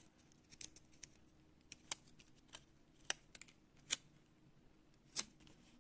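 Paper handling: faint, irregular sharp clicks and crinkles as a small paper sticker is peeled from its backing and pressed onto a paper page.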